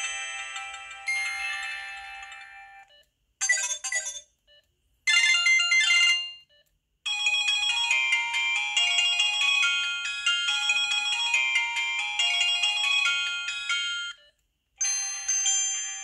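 Samsung SGH-T629 mobile phone ringtones played one after another: short, bright, chime-like melodies. One fades out, two brief clips follow with gaps between them, then a longer tune runs for several seconds, and another begins near the end.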